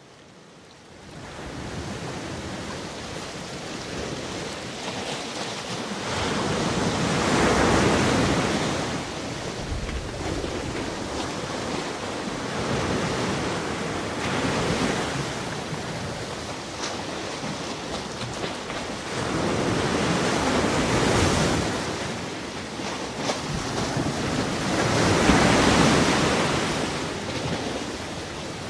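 Ocean surf: waves breaking and washing ashore, the noise swelling with each wave about every six seconds. It fades in from silence at the start.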